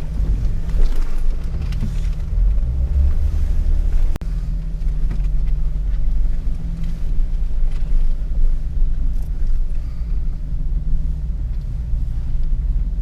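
Jeep Wrangler engine running low and steady as it crawls over a trail obstacle, with light knocks and one sharp click about four seconds in.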